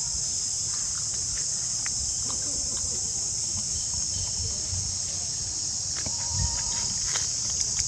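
Steady, high-pitched insect chorus droning without a break, with faint low rumble and a few light clicks and rustles near the end.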